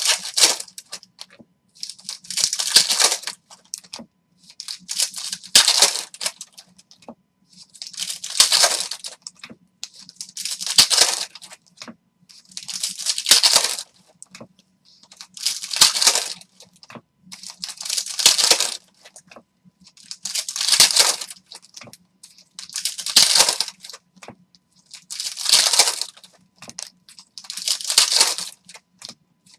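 Foil wrappers of Upper Deck hockey card packs being torn open and crinkled by hand, one pack after another. There is a burst of crackling about every two and a half seconds, about a dozen in all.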